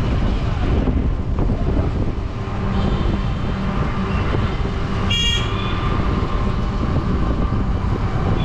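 Steady rumble and road noise from a moving tuk-tuk. A vehicle horn toots briefly about five seconds in.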